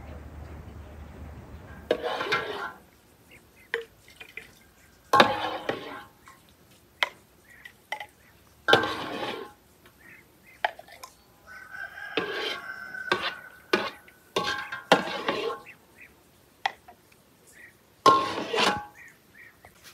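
A mug scooping plum juice from an enamel basin and pouring it into glass jars: a series of scraping, splashing and clinking sounds every few seconds, with light glass clicks in between.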